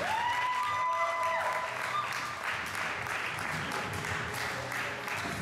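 Audience applauding, with background music under it; a held musical note sounds over the clapping for about the first second and a half.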